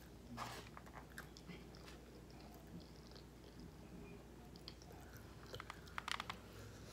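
Faint close-up chewing of a mouthful of rice and roast pork, with small wet mouth clicks. A quick cluster of sharp clicks about six seconds in comes as the next forkful, on a plastic fork, goes into the mouth.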